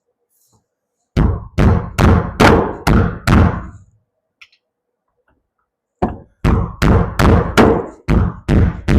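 Two runs of heavy, evenly spaced knocks, about two and a half a second: six in the first run, then after a pause about nine more.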